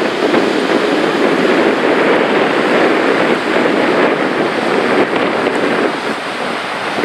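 Gullfoss waterfall: the loud, steady rush of a large volume of falling water.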